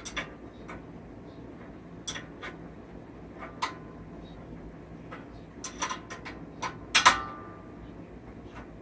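Irregular metallic clicks and clinks of a hand wrench working a bolt loose on a minibike frame, a few scattered at first, then a quick cluster, the loudest a ringing clink about seven seconds in.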